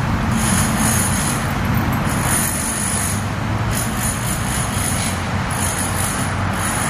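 Steady road traffic noise: a continuous rumble and hiss with no breaks.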